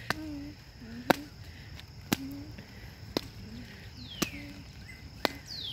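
Birds calling outdoors, several calls sliding down in pitch, with a steady high insect-like tone and regular sharp ticks about once a second.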